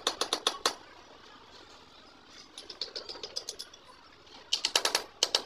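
Rapid light hammer taps on the steel parts of a heavy-machinery chain roller, in quick runs of several strokes: a loud run at the start, softer taps around the middle, and another loud run near the end.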